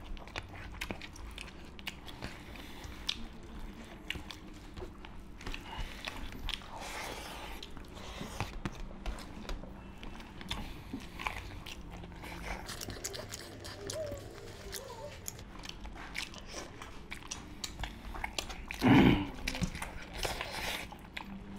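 Close-miked eating: two people chewing and biting into chicken curry and rice eaten by hand, with many small wet smacks and clicks and fingers working food on steel plates. One brief, louder sound near the end.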